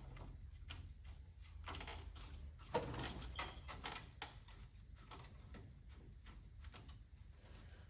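Faint, irregular clicks and knocks of hand tools working on a car's front-suspension ball joint, whose stud is spinning instead of letting the nut come off, with one sharper knock about three seconds in. A low steady hum runs underneath.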